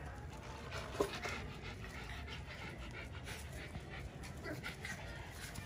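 Puppies and small dogs playing on a concrete patio: light scuffling and small dog sounds, with one sharp click about a second in.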